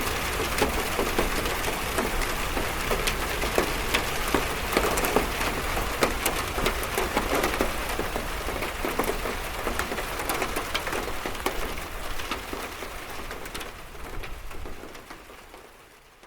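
Rain falling on a metal roof: a dense, steady wash of many small drop ticks, which fades out over the last couple of seconds.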